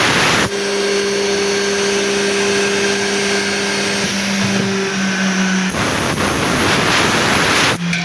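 CNC door lock and hinge routing machine running. A loud rushing noise at the start and again from about six to nearly eight seconds in alternates with a steady motor hum carrying a higher second tone, which shifts in pitch a little after four seconds.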